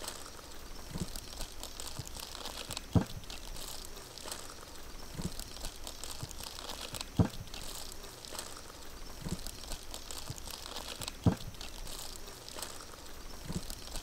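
Thick chocolate brownie batter being folded with a large spoon in a bowl: a short thud about every two seconds as each scoop is turned over, over a faint steady high hiss.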